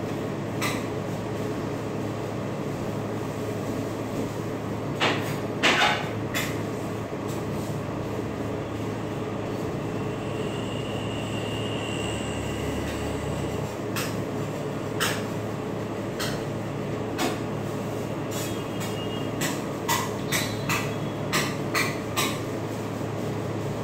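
Steady hum of an ice cream roll machine's refrigeration unit, with metal spatulas scraping and knocking on its frozen steel pan. The knocks are scattered, with a quick run of about six near the end.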